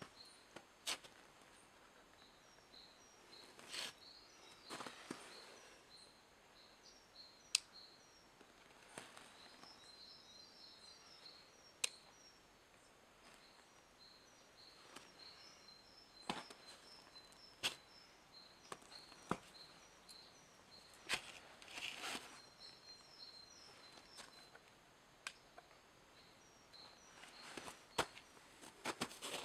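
Quiet outdoor ambience with scattered sharp clicks and a few soft knocks and crunches as a chainsaw is moved and handled on snow, its engine not running. Faint small bird chirps run through it.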